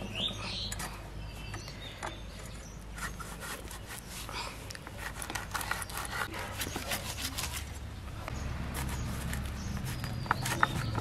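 A blade cutting into a raw jackfruit: a run of irregular short cuts and knocks over a steady low hum.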